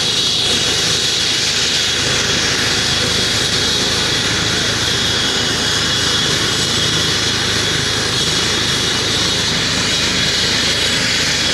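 Helicopter on the ground just after landing, turbine and rotor running steadily with a high whine, its downwash raising dust.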